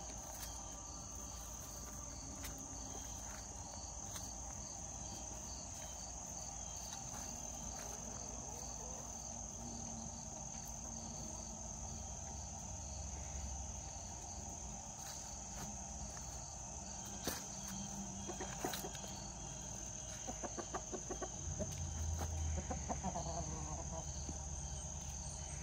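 Crickets chirping steadily over a continuous high insect trill. Backyard hens give a few soft clucks, with small clicks, in the last several seconds.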